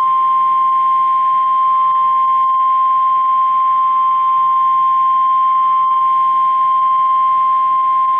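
NOAA Weather Radio 1050 Hz warning alarm: a single loud, steady tone held without a break, over faint radio hiss. It is the signal that a severe thunderstorm warning is about to be read.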